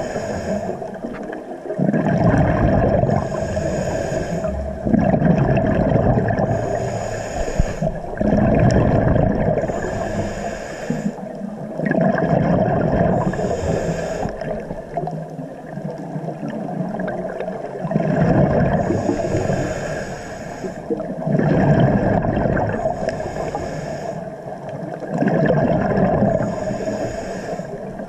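Scuba diver breathing through a regulator underwater: a hiss on each inhale, then a burst of bubbling exhaust, repeating every few seconds over a steady hum.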